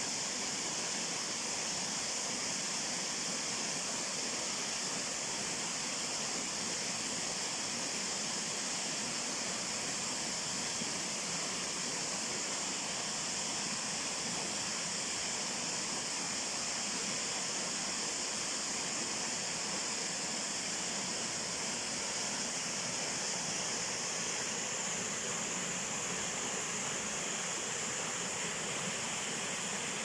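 Waterfall rushing steadily down a rock face, an even, unbroken hiss of falling water.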